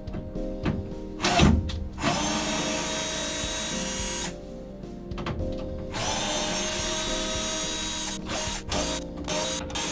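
Electric drill-driver running in two bursts of about two seconds each, backing out screws from wooden panelling, with short clicks and knocks between the runs. Background music plays underneath.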